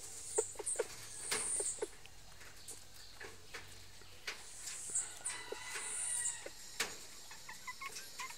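Chickens, a rooster and a hen, pecking at feed, their beaks making sharp irregular clicks on the feeder, with soft clucking and a longer call about five seconds in.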